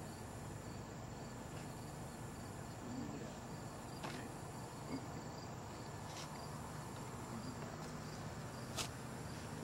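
Crickets chirping steadily in an even pulsing rhythm, with a few faint clicks from handling at the table.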